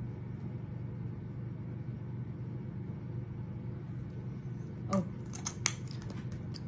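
Steady low hum of room tone, with a few small, sharp clicks about five seconds in.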